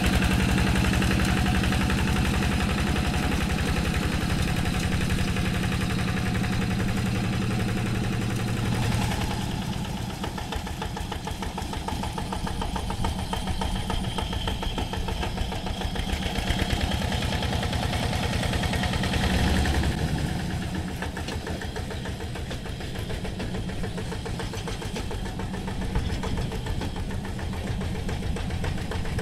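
Two-wheel hand tractor's single-cylinder diesel engine running steadily under load with a rapid, even chugging as it works through a flooded, muddy paddy. The sound drops in level about a third of the way in and shifts again about two-thirds of the way through.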